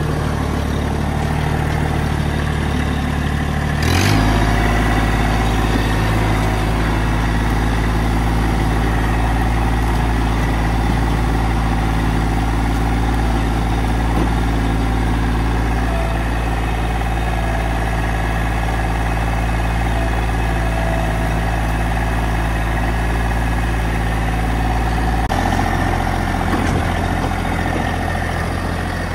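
Massey Ferguson GC1710 compact tractor's diesel engine running steadily. About four seconds in a sharp knock comes as the engine note changes, and the note shifts again near the end.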